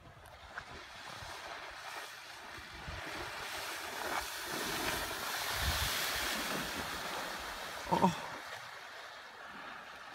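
Hiss of water spray from a surfboard planing fast across a pond on a tow rope, swelling as the rider passes and then fading. A brief shout about eight seconds in.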